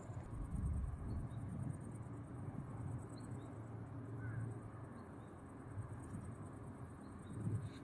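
Outdoor ambience: a low, uneven wind rumble on the microphone, with faint, short high chirps scattered every second or two.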